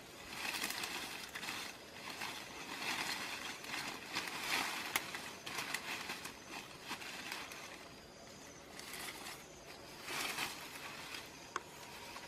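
Rustling of dry grass, twigs and leaves as hands pull and push at undergrowth, coming in uneven bursts, with a couple of sharp clicks about five seconds in and again near the end.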